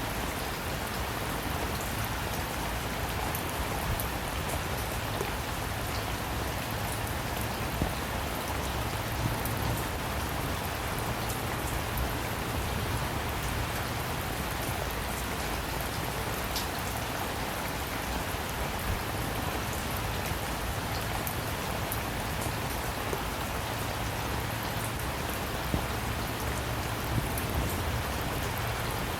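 Steady rain falling, a dense even hiss with scattered louder drops ticking on a surface now and then.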